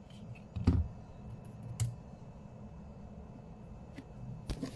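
A plastic Speed Stacks timer set down on a desk with a knock about a second in, then a lighter knock. A couple of sharp plastic clicks near the end come from pressing the pins of a clock puzzle.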